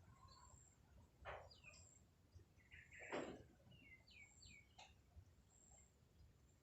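Faint bird calls: a handful of short, high chirps that drop in pitch, and two brief harsh calls, one about a second in and one about three seconds in.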